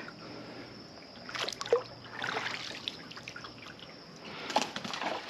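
Water trickling and splashing around a kayak, with a few short splashes, the loudest about a second and a half in and another cluster near the end.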